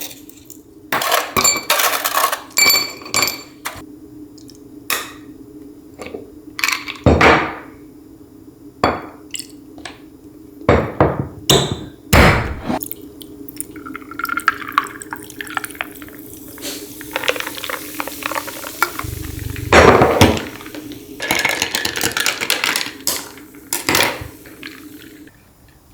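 Glassware and bottles clinking and knocking while a whisky highball is mixed. Some clinks ring on, and a stretch of liquid pouring comes in about two-thirds of the way through.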